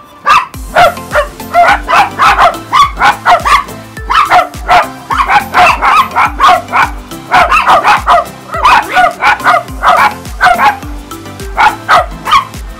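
Italian greyhounds barking in quick runs of loud barks, about two or three a second, with short breaks: alert barking at people walking and jogging past beyond the fence.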